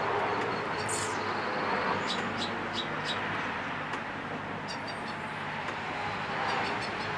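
Steady low hum with an even background noise, and faint high chirps now and then, like birds.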